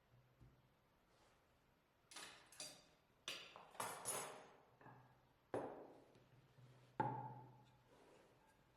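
Hard household items, such as crockery, being handled and set down: a string of sharp clinks and knocks that come irregularly for about five seconds. The last knock is the loudest and rings briefly with a clear tone.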